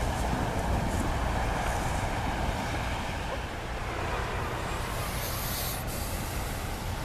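A small fishing boat's engine running steadily as the boat sits in the shallows: a low rumble under a hiss of churning water and wind. A rush of sharper hiss comes in about five to six seconds in.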